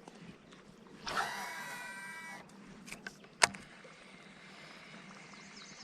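Fishing reel whirring for about a second, then a single sharp knock.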